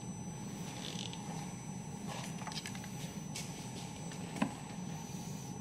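Small clicks and scrapes of a test light probe working among the pins of the engine computer's wiring connector, with one sharper click about four and a half seconds in, over a steady low hum.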